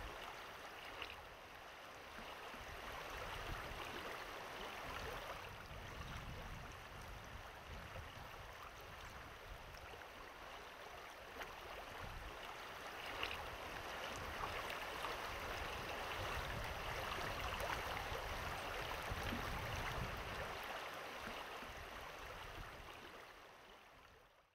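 River water running steadily, fading out near the end.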